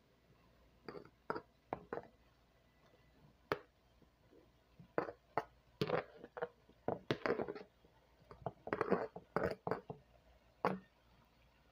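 Irregular clinks and knocks of a metal dish against a cooking pot as fried vegetables are tipped and scraped into it. The knocks come singly and in short clusters, busiest in the middle and second half.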